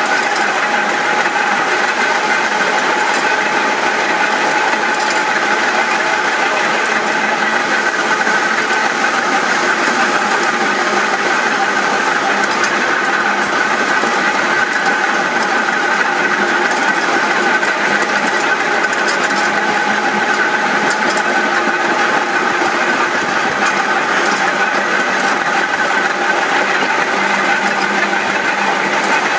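Open crossbench electric tramcars of the Manx Electric Railway running side by side at steady speed: a steady whine of traction motors and gearing over the noise of wheels on the rails, with a few faint clicks.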